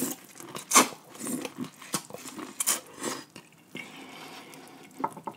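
A person biting into and chewing boiled corn on the cob: a bite right at the start, then chewing with scattered sharp crunches and clicks.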